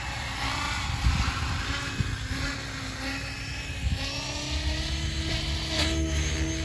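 RC 3D helicopter running, its motor and rotor giving a steady whine that edges slightly higher in pitch, over an uneven low rumble.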